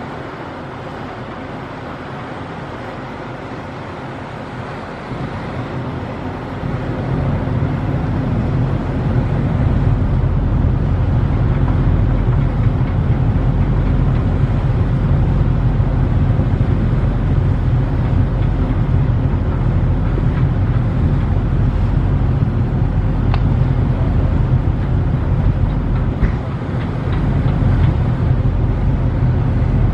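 Steady low rumble of a ferry's engines with a hiss of wind and water over it; the rumble grows louder about six to eight seconds in.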